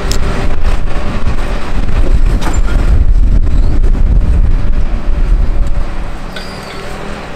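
Hitachi Zaxis 225 excavator working under load as its bucket digs into soil and rubble and lifts a full load, with knocks and scrapes from the bucket. The sound eases off about six seconds in.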